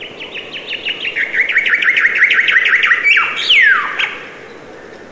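A songbird singing one phrase: a fast run of repeated chirps, about seven a second and growing louder, then a whistled note sliding steeply downward about three seconds in. The song stops about four seconds in, leaving a steady background hiss.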